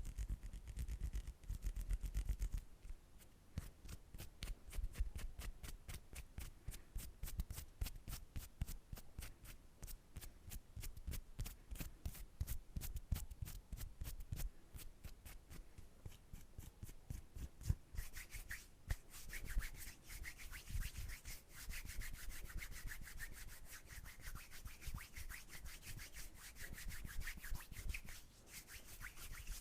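Bare hands rubbing together close to the microphone in quick, repeated strokes. About eighteen seconds in, the rubbing turns brighter and hissier.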